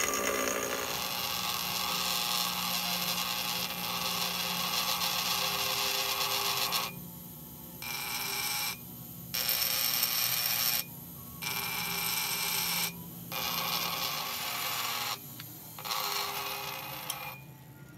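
Electric grinder grinding a piece of steel to clean it up. The motor's steady whine runs under a harsh grinding noise, which drops away several times in the second half as the work is lifted off and pressed back on in short passes.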